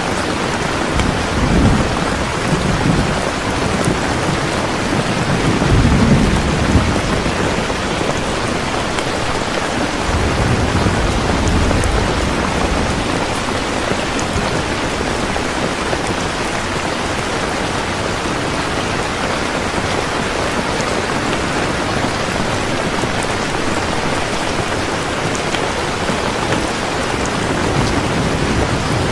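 Heavy rain pouring steadily, with low rolls of thunder swelling up about two, six and eleven seconds in.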